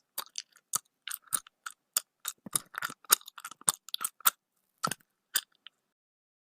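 A sound effect made of quick, irregular clicks and crunches, several a second, that stop about five and a half seconds in.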